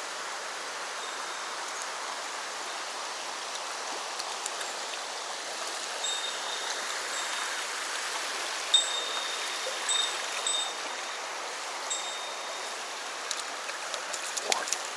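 Mountain stream flowing with a steady rush of water. Short high whistled notes repeat several times in the middle, and a few light clicks come near the end.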